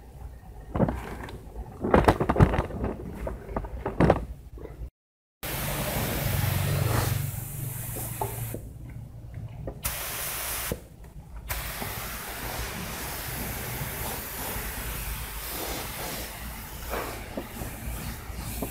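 A few knocks and clicks of plastic motorcycle parts being handled, then a paint spray gun hissing steadily as it sprays clear coat, with two short pauses where the trigger is released.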